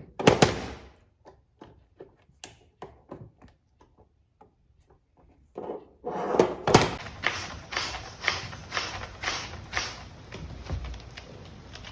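A series of sharp knocks and taps, irregular at first, then a louder, denser run of knocks about twice a second from halfway through.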